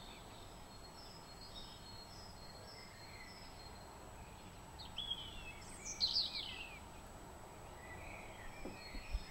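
Common pheasant cock giving its short two-part crow about five seconds in, the second note the louder. Small songbirds chirp faintly before and after it.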